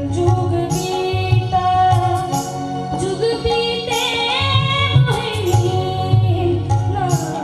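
A boy singing a song into a microphone over accompanying music with a steady drum beat; his voice is high and the melody rises to its highest notes about four seconds in.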